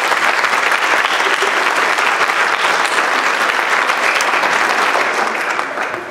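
Audience applauding: dense, steady clapping from a roomful of people that fades out near the end.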